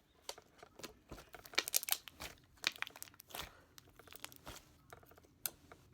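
Hands kneading and squishing slime, butter slime being mixed into another slime, giving irregular sticky clicks and crackles.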